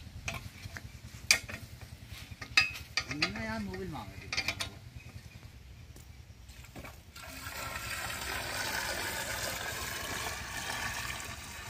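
Sharp metallic clinks and clanks of a spanner on the centrifugal pump's outlet fitting, then from about seven seconds a steady rush of water poured from a bucket into the pump casing to prime it.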